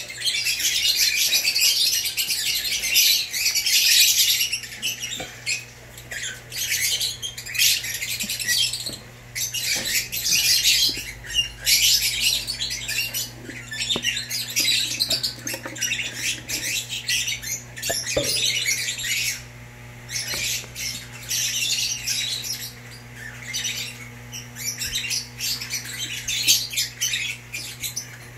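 A flock of lovebirds chattering and screeching in an aviary, a dense run of high-pitched squawks in quick bursts with brief lulls, over a steady low hum.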